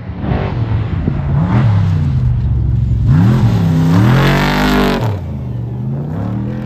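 Off-road race truck's engine revving hard as it speeds past on a dirt road. The pitch swings up and down several times with the throttle, is loudest as the truck passes about four seconds in, and drops off suddenly just after five seconds as it pulls away.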